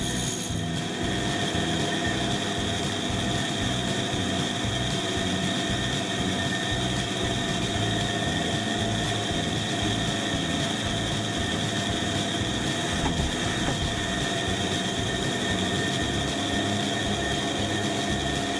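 Pégas ZPE-SRP14CE fine-cut bandsaw running steadily with a whine carrying several high steady tones, its narrow blade cutting a small wooden rabbit blank.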